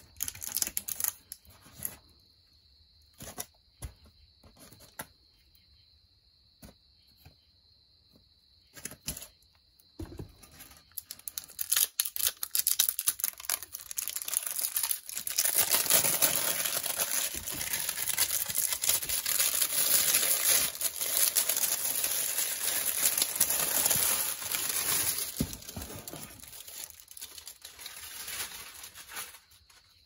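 Plastic packaging crinkling and tearing as a ceiling fan blade is unwrapped. The first stretch has only scattered light taps and rustles. After about ten seconds it becomes a long, loud, dense crackle that dies away near the end.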